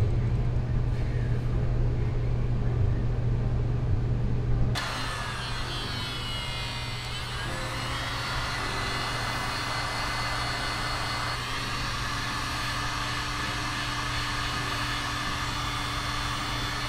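A low steady hum, then from about five seconds in a heat gun's fan blowing with a steady rushing noise and a whine, shrinking heat-shrink tubing over a freshly soldered wire joint.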